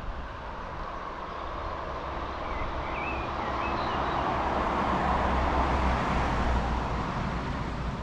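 A car passing by on the street: tyre and engine noise swells to a peak about five to six seconds in, then fades. A few faint bird chirps about three seconds in.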